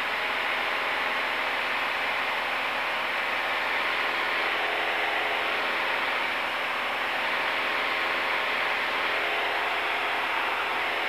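Steady drone of a Cessna 172N's four-cylinder Lycoming O-320 engine and propeller in flight, heard through a direct connection to the aircraft's intercom.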